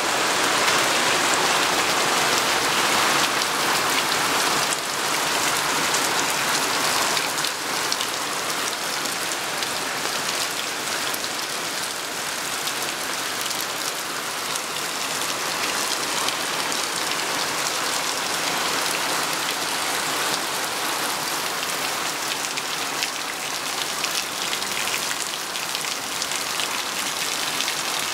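Heavy rain falling steadily on a paved patio and garden, splashing on pots and leaves and into standing water, as a dense even patter. It eases slightly after about seven seconds.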